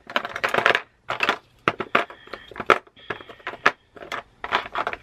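Small plastic Stampin' Up Stampin' Spot ink pads clicking and clattering against each other in a plastic storage box as a hand rummages through them, in quick runs of knocks.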